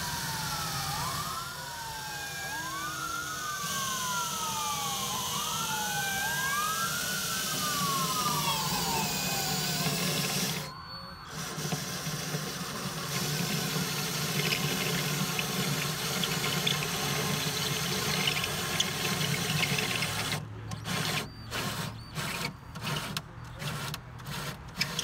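Cordless drill with a step bit cutting a hole through a metal cabinet top. A siren wails up and down over the first ten seconds. Near the end the drill runs in short on-off bursts about twice a second.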